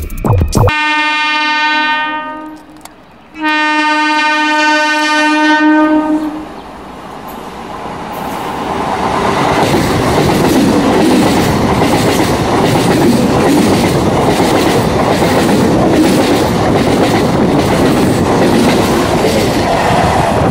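Electric multiple-unit local train (MEDHA EMU of South Eastern Railway) sounding two long horn blasts, the second louder. Then the train runs by with a steady rumble and clatter of wheels on the rails that builds up over a few seconds and holds.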